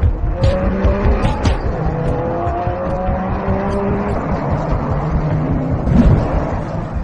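Race car engine sound effects from an animated logo ident, run through audio effects, with short held tones that step up and down in pitch. A louder hit comes about six seconds in.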